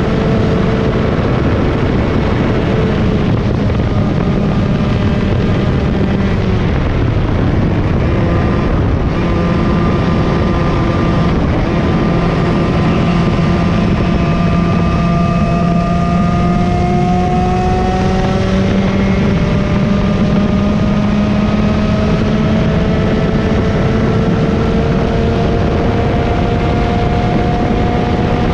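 Yamaha KT100 two-stroke kart engine running hard in a race. Its pitch climbs slowly through long pulls, dips about two-thirds of the way in, then climbs again.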